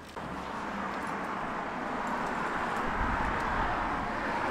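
Road traffic on a busy street: a steady hiss of passing cars' tyres that starts abruptly, with a low rumble about three seconds in.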